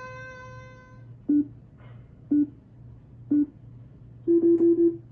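Photo booth app countdown: three short identical beeps a second apart, then a longer stuttering beep as the 360 booth session starts capturing. A steady held tone sounds during the first second.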